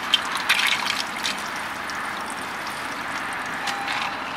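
Iced coffee poured out of a plastic cup onto the ground: a steady liquid trickle, with a few clicks and rattles in the first second or so.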